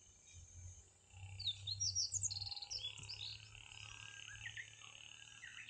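A bird sings a quick run of high chirping notes about a second in. From about three seconds a steady high trill carries on under a few more scattered chirps.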